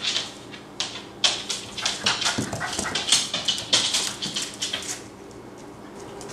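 Yellow Labrador retriever puppy whimpering and yipping in a string of short high cries, which stop about five seconds in.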